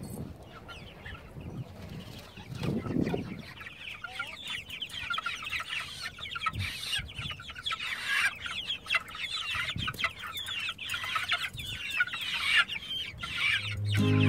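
A flock of young meat chickens peeping and cheeping, many short high chirps overlapping.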